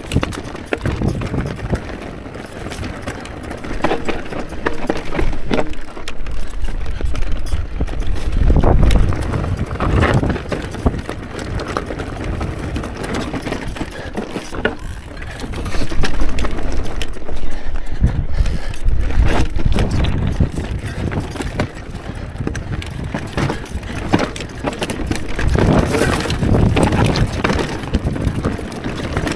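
Mondraker Crafty electric mountain bike ridden over rocky trail: tyres crunching and knocking over stones, with the bike clattering and rattling over the bumps. The low rumble of wind on the camera microphone surges with it, loudest about a third of the way in and again past the middle.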